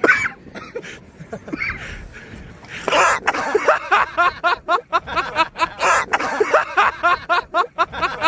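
Hearty laughter in quick repeated bursts, breaking out about three seconds in and going on to the end, with a word spoken over it.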